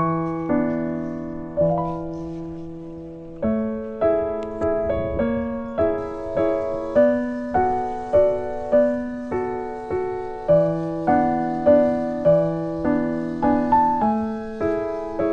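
Background piano music: a gentle melody of single notes over held low notes, a new note struck about every half second.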